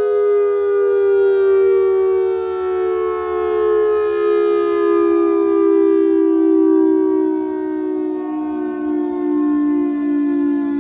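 Federal Signal 2001-130 electromechanical outdoor warning siren winding down at the end of its test run. Its wail falls slowly and steadily in pitch.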